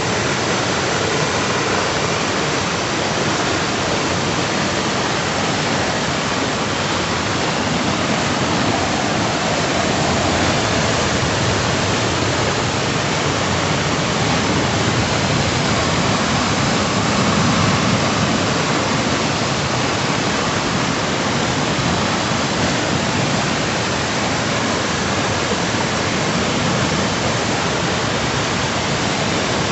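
Rain-swollen river in flood, its churning white water rushing loudly and steadily.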